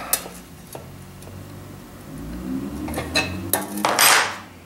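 Light metal clinks and scraping of steel tools against the fittings of a Coleman stove's fuel tank as a part is snugged up. A few sharp clicks come early, and a short, louder rasping rush comes about four seconds in.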